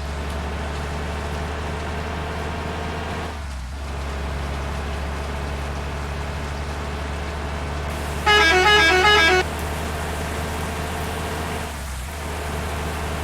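Bus engine running steadily, with a multi-note musical horn sounding a short stepping tune for about a second, roughly two-thirds of the way in.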